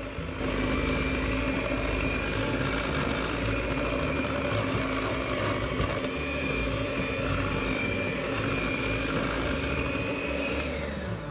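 Electric hand mixer running steadily at one speed, its beaters mixing thick cake batter in a glass bowl; the motor's pitch falls as it winds down near the end.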